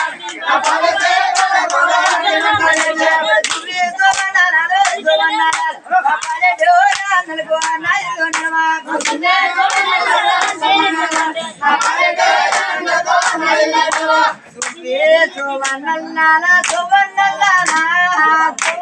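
Men singing a Telugu golla chaduvu folk song, with a crowd of hands clapping steadily in time.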